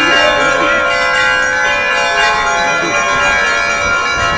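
Russian Orthodox church bells on a portable belfry ringing a trezvon, several bells sounding together in a continuous, dense peal of overlapping ringing tones.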